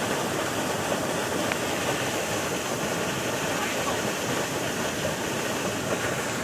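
River water flowing, a steady, even rushing.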